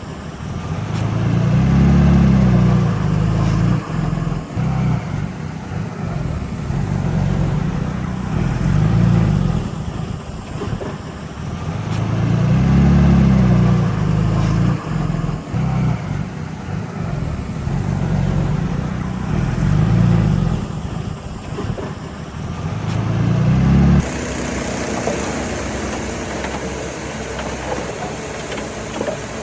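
Heavy earthmoving machine's diesel engine working under load, its low drone swelling and easing again every several seconds as it pushes and eases off. Near the end the sound cuts abruptly to a steadier, hissier machine noise.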